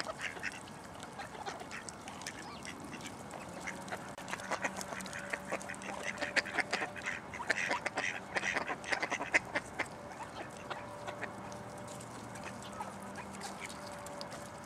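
A group of mallard ducks quacking close by: many short, repeated calls, busiest in the middle.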